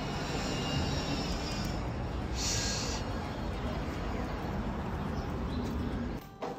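Steady low rumble of outdoor city street noise, with a short hiss about two and a half seconds in. The rumble drops off suddenly near the end.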